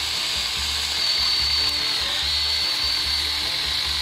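Battery-powered Milwaukee M12 Hatchet brushless mini pruning chainsaw running under the trigger, a steady high whine as the chain cuts into wood; the pitch sags slightly about two seconds in.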